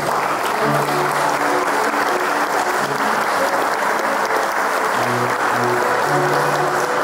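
A crowd applauding steadily over instrumental music that has held low bass notes.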